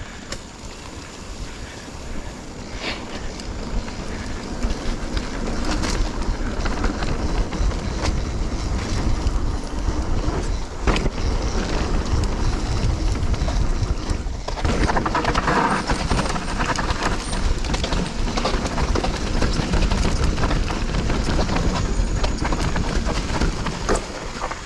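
Specialized Stumpjumper Evo Pro mountain bike being ridden fast down a dirt trail: tyres rolling over the ground with a constant rattle and clatter from the bike, and a low rumble. The sound grows louder over the first few seconds as the bike picks up speed.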